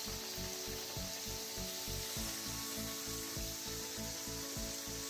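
Karanjis deep-frying in hot oil: a steady sizzle, with quiet background music underneath.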